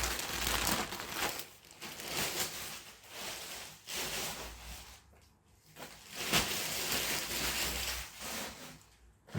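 Paper and parcel packaging being handled and crinkled, in irregular rustling bursts with a short lull a little past halfway.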